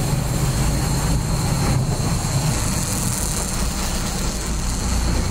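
Engine of a 1975 fishing boat running steadily, heard from inside its cabin: a constant low drone with a steady hiss over it.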